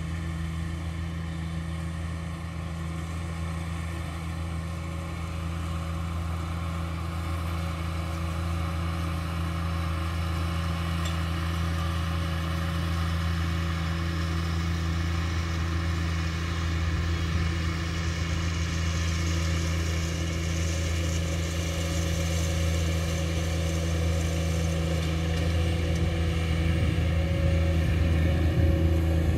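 Riding mower's engine running steadily, growing gradually louder as the mower comes down the hill toward the listener.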